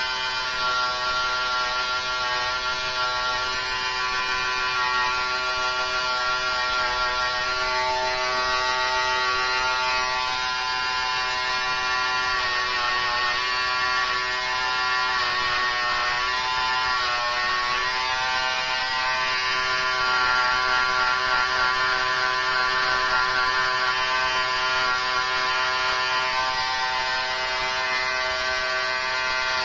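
Electric hair clippers running with a steady high buzz while cutting lines into short hair. The pitch wavers briefly around the middle.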